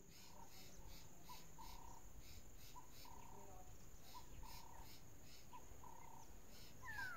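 Faint insect chorus: a steady high drone with a chirp pulsing about three times a second. Under it, a short low call repeats every second or so, and a single falling whistle comes near the end.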